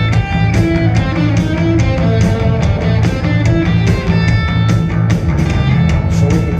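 Loud rock music with guitar and drums playing steadily.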